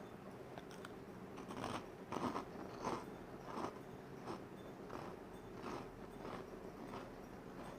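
A person chewing food in a steady rhythm, about one chew every two-thirds of a second.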